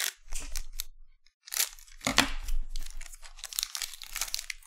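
The foil wrapper of a Bowman Chrome trading-card pack being torn open and crinkled by hand: several short crinkling tears over a few seconds, the loudest about two seconds in.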